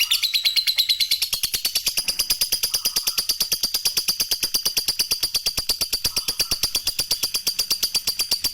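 Lovebird ngekek: one long, unbroken chattering trill of rapid high clicking notes, about ten a second, kept up at an even pace.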